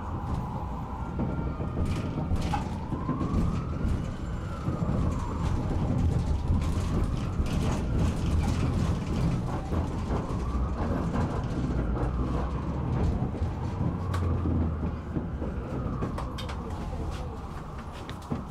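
An emergency vehicle's siren wailing, its pitch rising and falling slowly about every three seconds, over the low rumble of a moving tram.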